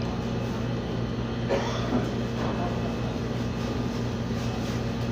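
Steady low machine hum, with faint voices in the background.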